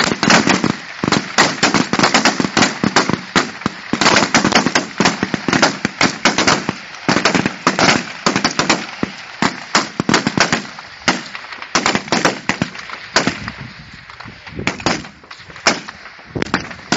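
Many rifles firing along a firing line: sharp, overlapping shots several a second, thinning out near the end.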